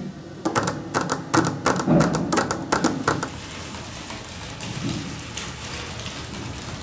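Several pairs of hands crumpling and rubbing sheets of paper on tables: a dense, irregular crackling for about three seconds, then a softer, steady rustling. It is a sound effect made by hand and recorded for a soundtrack.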